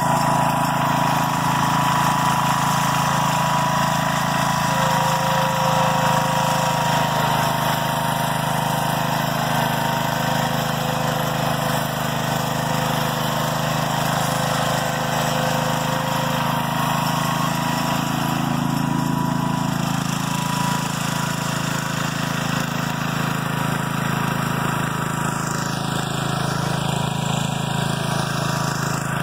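1983 Wheel Horse C145 garden tractor's single-cylinder Kohler engine running steadily under load as it pulls a Brinly moldboard plow through sod.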